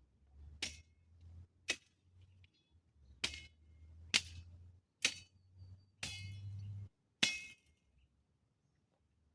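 Seven sharp metallic strikes, roughly one a second, each with a short bright ring, like a metal hand tool hitting something hard.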